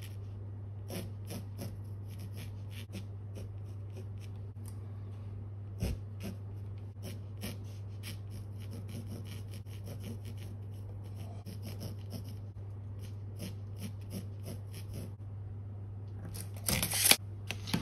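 Graphite pencil scratching short strokes on canvas, over a steady low hum. Near the end comes one louder, brief scraping noise.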